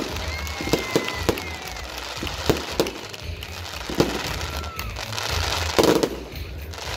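Fireworks going off: a run of sharp bangs and pops over crackling sparks, with the loudest burst near the end.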